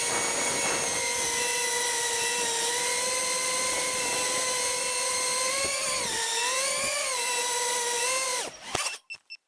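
Newbeedrone Beebrain brushless FPV quadcopter's motors and propellers whining at a high pitch, heard through the camera mounted on the drone, with the pitch dipping and rising a little as the throttle changes. The whine cuts off about eight and a half seconds in, followed by a few faint clicks.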